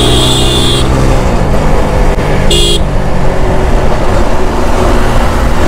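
Motorcycle riding through road traffic: a steady rumble of engine and wind, with a high vehicle horn sounding until about a second in and again briefly near the middle.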